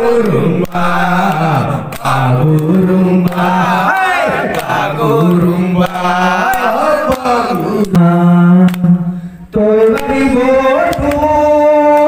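Men singing a chant-like song in turn into a handheld microphone, with long held notes.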